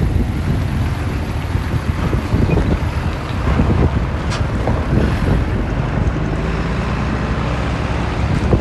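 Heavy earthmoving machine's diesel engine running steadily, with wind buffeting the microphone.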